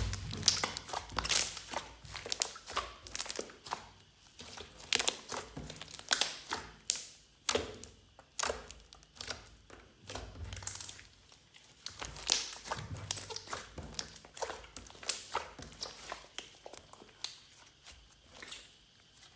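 Hands squishing and kneading glossy slime: a dense, irregular run of wet clicks and crackling pops, stopping near the end.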